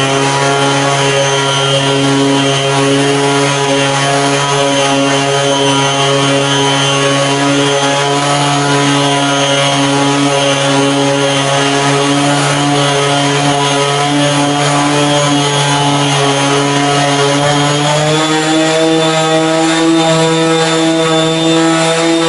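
Electric orbital sander with a foam polishing pad running against a plastic headlight lens, buffing it with polishing compound: a steady motor whine that rises a step in pitch late on.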